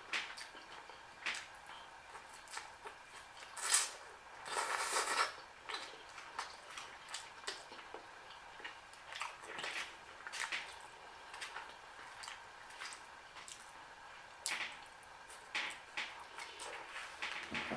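A person eating shrimp and ramen noodles close to the microphone: wet mouth smacks and chewing clicks every second or so, with one longer, noisier stretch about four and a half seconds in.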